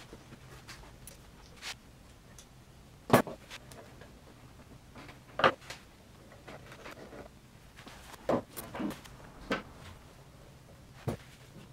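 Spring clamps being opened and snapped onto a knife's wooden handle scales to hold them while the epoxy cures, with scattered clacks and knocks. The loudest come about three and five and a half seconds in, and a cluster follows near the end.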